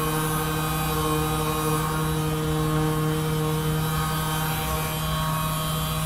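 A steady droning hum of several held tones, with no beat or sudden sounds.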